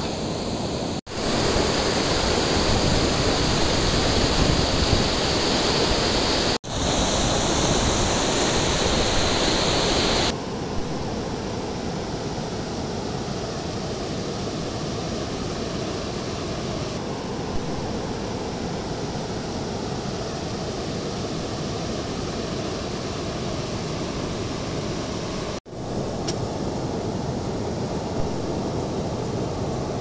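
Steady rush of river rapids and a small waterfall, louder in the first third and dropping out for an instant three times.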